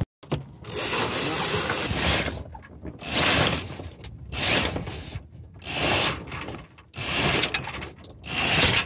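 Sailboat mainsail being hoisted: the halyard is hauled in about six long pulls, each one a rushing run of rope through the mast blocks with a faint high whine, separated by short pauses.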